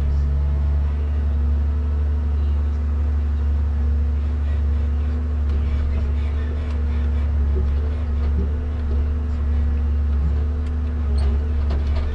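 Komatsu 875 forwarder's diesel engine running steadily, heard from inside the cab as a deep drone, while the hydraulic crane swings the grapple out to the logs. A few light knocks come through near the end.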